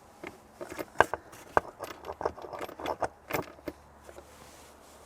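Light clicks and short metallic jingling rattles, a dozen or so scattered over about three and a half seconds, the sharpest about a second in and near the middle.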